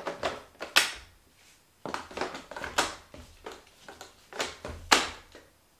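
Clear plastic water reservoirs being pulled out of and pushed into the rear of Roborock robot vacuums: several sharp plastic clicks and knocks, with quieter rubbing and handling between them.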